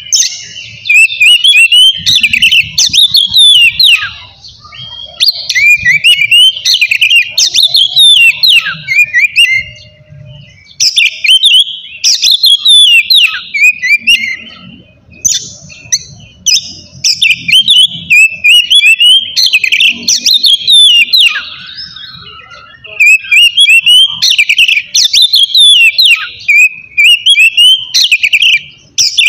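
Oriental magpie-robin (kacer) singing its loud full song: bouts of rapid, varied whistles and trills, each a few seconds long, broken by short pauses.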